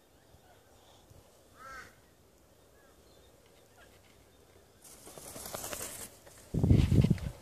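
A sulphur-crested cockatoo gives a brief faint chirp, then a loud, harsh screech lasting about a second, starting about five seconds in. Just after it comes the loudest sound, a short burst of low buffeting close to the microphone.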